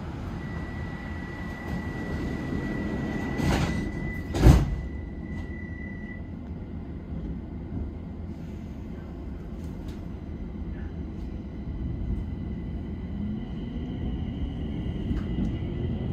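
Stockholm metro train standing at a platform with a steady high tone sounding, then its doors closing with two knocks, the second and louder one about four and a half seconds in. Near the end the traction motors start up with a rising whine as the train pulls away.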